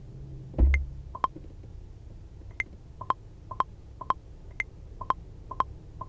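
Metronome click from music software ticking about twice a second, with a higher-pitched accent click every fourth beat, like a count-in at about 120 beats a minute. A single low thump comes about half a second in.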